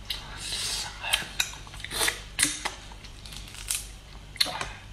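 Shells of whole cooked prawns being peeled by hand, cracking and crackling in a series of irregular sharp snaps.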